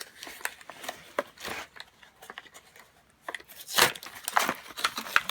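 Tire plug repair kit being opened by hand: packaging crinkling and tearing with small clicks and rattles, with a short pause, then louder rustling about four seconds in.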